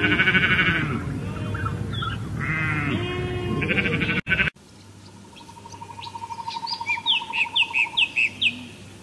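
A flock of sheep bleating, several voices overlapping. After a cut about four and a half seconds in, a bird chirps in a quick run of short notes over a steady, fast-pulsing trill.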